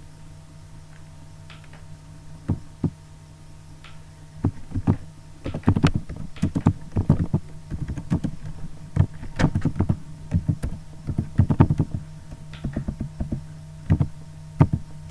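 Computer keyboard keys clacking in irregular bursts of typing, thickest in the middle, over a steady low electrical hum.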